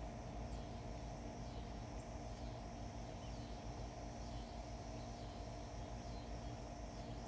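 Outdoor ambience of insects chirring steadily in a continuous high drone, over a steady low hum.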